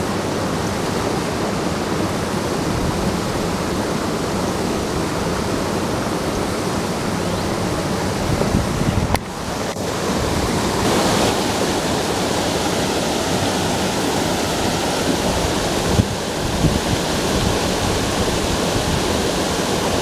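Steady rushing of a small creek waterfall spilling over a low rock ledge, with a brief drop in level about halfway through.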